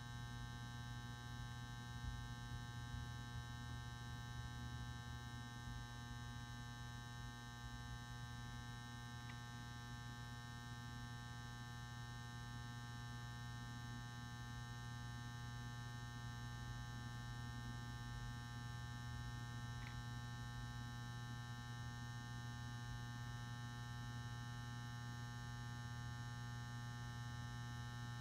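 Magnetic ballast for a 400 W pulse-start metal halide lamp humming steadily, a mains hum with many overtones, while the lamp is still warming up. A few faint ticks are heard.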